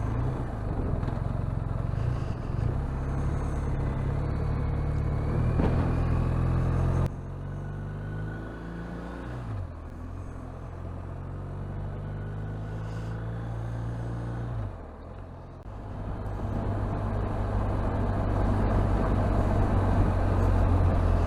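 Motorcycle engine running on the move. It eases off about seven seconds in, runs lower with pitch shifts, and picks up again from about sixteen seconds as it accelerates.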